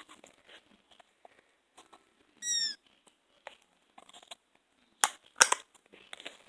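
Slime being squished and worked by hand, with small sticky clicks and crackles and two loud sharp pops about five seconds in. About halfway there is a short high-pitched squeak that falls in pitch.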